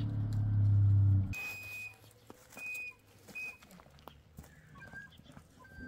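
A low, steady engine-like hum cuts off abruptly about a second and a half in. After it, birds call in short, high, whistled notes, one at a time, several times.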